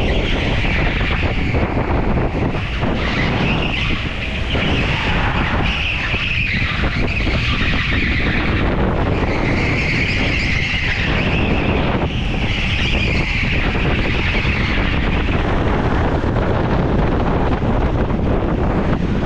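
Go-kart driven hard, heard from on board: a steady motor and tyre rumble, with a high tyre squeal that comes and goes about five times through the corners and dies away once the kart reaches the straight near the end.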